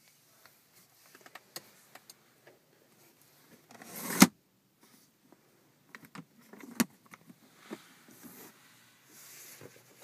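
Hands working the ribbed roll-top cover of a car's centre console: scattered light clicks and plastic rattles, with a short slide ending in a sharp snap about four seconds in.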